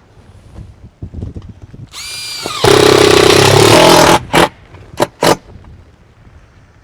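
A power drill-driver spins up with a whine about two seconds in, then runs loud for about a second and a half as it drives a screw, followed by three short trigger bursts.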